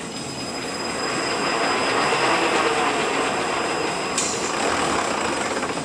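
Rebuilt Eaton Fuller RTLO-18918B 18-speed truck transmission running on a test dyno: a steady mechanical whir of spinning gears and shafts. It swells slightly in the middle, with a short click about four seconds in.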